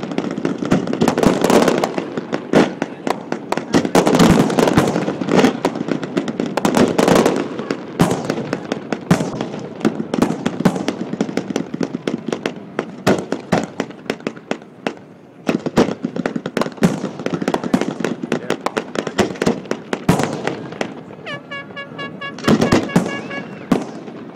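Fireworks display: a dense barrage of shells bursting with loud bangs and crackling. The bangs come thick and fast for the first several seconds, then thin out and grow quieter.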